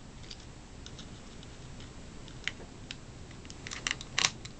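Scattered small clicks and light taps of screws and the plastic casing of a cordless screwdriver being handled as it is taken apart, with a quick cluster of louder clicks shortly before the end.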